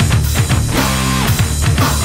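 Heavy rock music: electric guitar over a steady drum-kit beat, with a held guitar chord about a second in.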